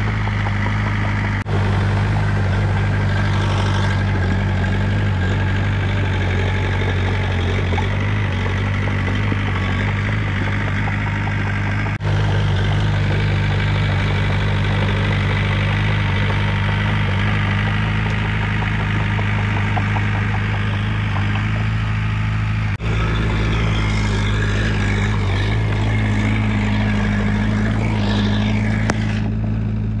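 Komatsu D20 crawler bulldozer's diesel engine running steadily at an even speed.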